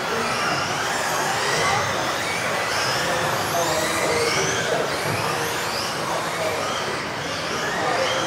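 Several electric radio-controlled off-road racing cars running round a hall track, their motors whining and sliding up and down in pitch as they accelerate and brake, overlapping one another.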